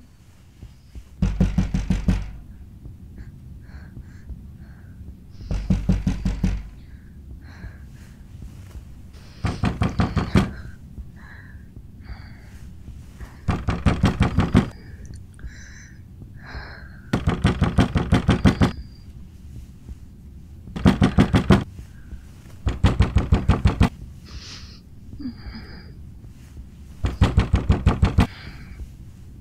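Someone pounding hard and fast on a wooden door: eight bursts of rapid blows, each about a second long, a few seconds apart, with quiet in between.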